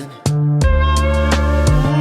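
Background music: a pop/R&B track with bass, drums and guitar, dropping out briefly about a quarter of a second in before the beat comes back.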